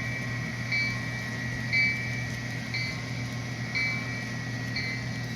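Sound decoder of an HO-scale Walthers EMD SD60M model locomotive ringing its bell, about one strike a second, over the steady low hum of its diesel engine sound from a small speaker.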